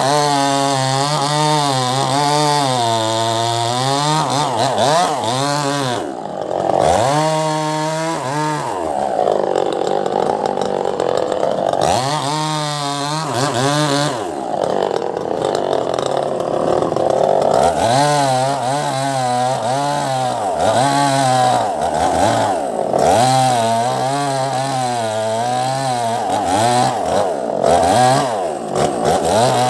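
Two-stroke petrol chainsaw ripping lengthwise along a curved rambutan log, its engine pitch wavering and sagging and climbing back again several times as the chain bites into the wood.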